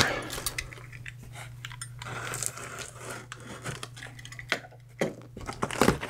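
Utility knife slitting packing tape on a cardboard box, with scattered scraping and rustling of the tape and cardboard, and a couple of sharper knocks near the end.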